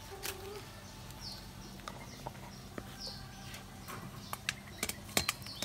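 Short, high-pitched animal chirps falling in pitch, repeating about once a second, with a few sharp clicks near the end.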